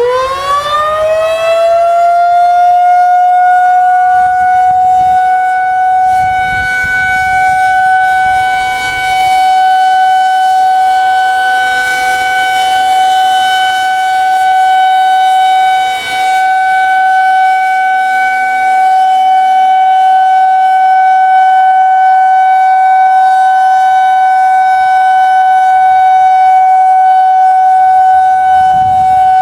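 Federal Signal 2001-SRNB outdoor warning siren sounding the steady Alert signal in a test: its pitch climbs over the first couple of seconds as it winds up, then holds one steady tone.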